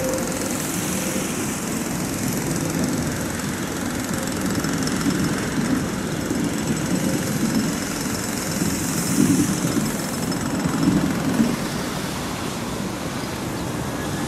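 Tram passing at a distance, a steady low rumble of wheels on rails that swells slightly a little past the middle.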